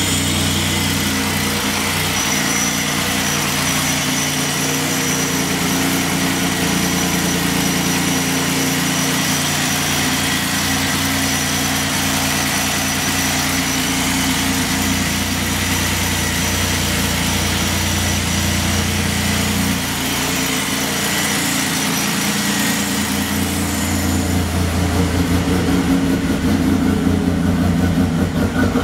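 A 1996 Chevrolet Beretta's GM V6, fitted with a lopey aftermarket cam, idling with a fresh timing chain and no valve-train tick. The only noise left, to the owner's ear, is exhaust leaks. The idle gets louder and more unevenly pulsing near the end.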